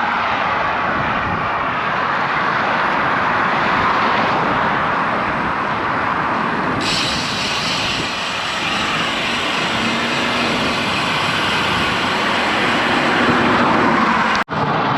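Steady rush of wind on the microphone and motor traffic on a highway, heard from a bicycle on the move. The sound cuts out for an instant near the end.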